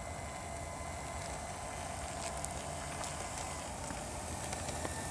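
RC T-28 model airplane's motor whining steadily as the plane taxis along asphalt with its brake parachute trailing, over low wind rumble on the microphone. Faint scattered ticks come in the second half.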